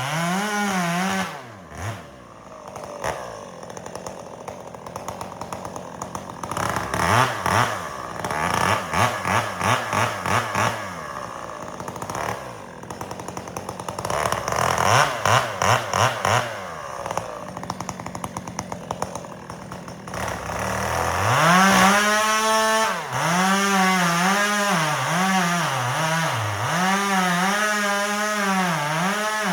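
Stihl MS 362 two-stroke chainsaw running at high revs, dropping back about a second and a half in to a lower, uneven run with repeated throttle bursts, then revving up again about 21 s in and cutting through a log, its engine speed dipping and recovering as the chain bites.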